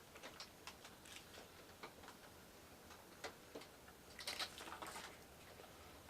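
Faint, irregular small clicks and taps of handling, with a denser cluster about four seconds in.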